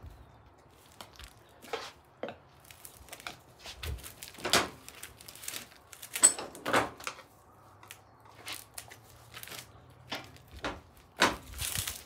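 A dozen or so sharp knocks, clanks and scrapes at uneven intervals as tire irons and a hammer force a tubed dirt-bike tire over its rim.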